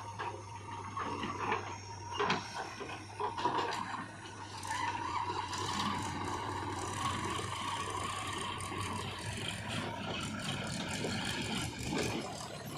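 Diesel engine of heavy earthmoving machinery running steadily, with metal rattling and scraping and a whine through the middle.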